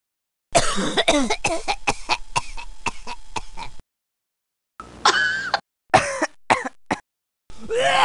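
A person coughing in a rapid fit of more than a dozen short harsh coughs over about three seconds. After a pause comes a drawn-out voiced throat clear, then three or four more short coughs.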